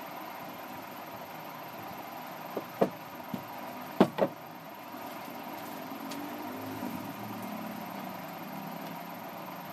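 A few sharp wooden knocks as a cricket bat is handled and turned over on a wooden workbench, the two loudest close together about four seconds in, over a steady background hiss. A faint low rumble follows.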